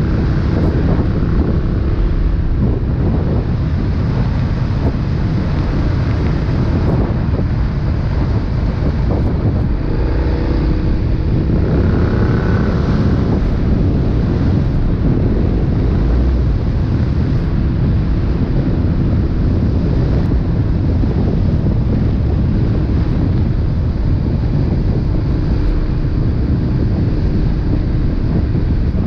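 KTM 1290 Super Duke R's V-twin engine running through an Austin Racing exhaust while riding, with wind rushing over the microphone. About ten seconds in, the engine note climbs in pitch for a few seconds as the bike accelerates.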